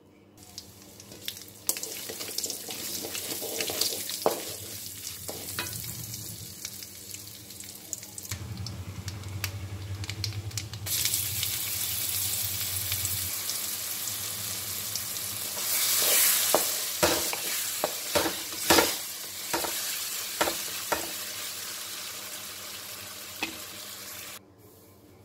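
Rasam spice paste and dried red chillies sizzling as they fry in oil in a metal pan, with a spatula stirring and scraping. Several sharp knocks against the pan come in the second half.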